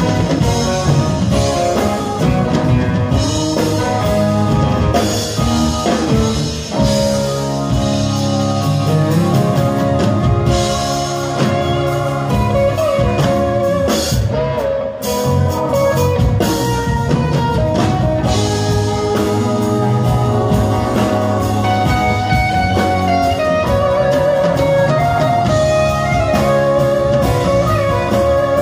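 Live rock band playing an instrumental passage: acoustic and electric guitars over a drum kit, with no singing.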